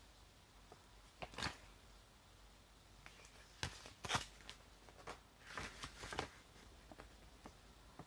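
Quiet room with a handful of faint, brief clicks and rustles scattered through it.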